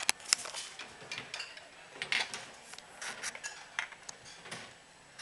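Tableware clinking: an irregular string of light clicks and clinks of utensils against dishes, a few loud ones near the start.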